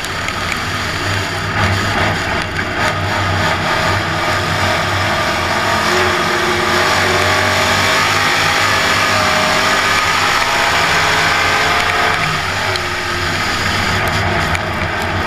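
Dirt-track race car's engine heard from inside the cockpit, running loud and steady at racing speed, its pitch rising and falling a little as the throttle changes.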